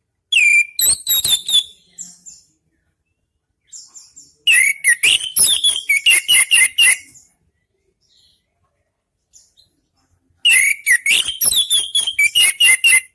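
Orange-headed thrush singing loudly in three phrases with pauses between, each opening with a whistled note and running into a quick series of sharp repeated notes.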